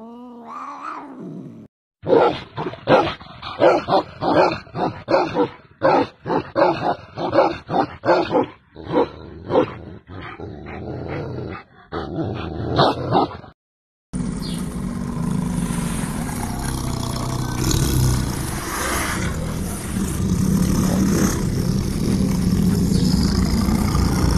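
A Tibetan mastiff barking repeatedly, deep barks about two a second for some twelve seconds, after a cat's brief rising cry. Near the end the barking gives way to a steady low rumbling noise.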